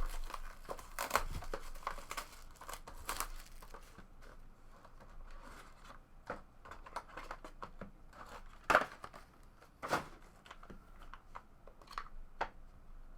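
Trading card packaging being torn open and crinkled, a continuous rustle scattered with small clicks. There are two sharper snaps about nine and ten seconds in.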